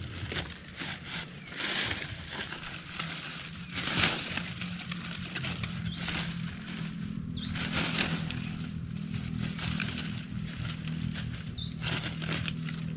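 Hands rustling and crackling dry leaves and forest-floor litter as debris is spread over a trail, in many short irregular crackles, over a steady low hum.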